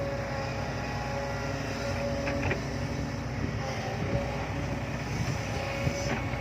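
Excavator's diesel engine running steadily with a steady tone over the engine note, and a few faint knocks about two and four seconds in.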